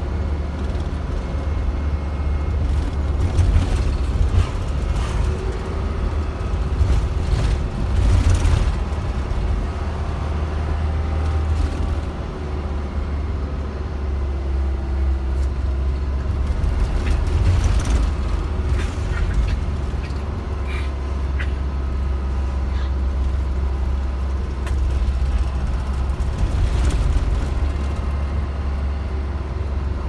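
Bus engine running and road noise heard from inside the cabin, a steady low drone with occasional rattles and knocks.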